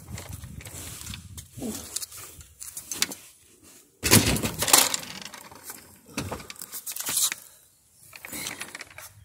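Irregular knocks, clicks and scraping as a van's removable upholstered rear seat is lifted and shifted into place, with the loudest clatter about four seconds in.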